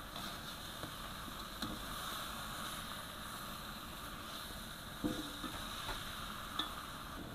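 Chicken pieces sizzling in spice paste in a wok while a metal spatula stirs them, with a steady hiss and occasional scrapes and clicks of the spatula on the wok. There is a sharper clank with a brief ring about five seconds in. This is the chicken being seared in the spice paste, the step before coconut milk goes in for opor ayam.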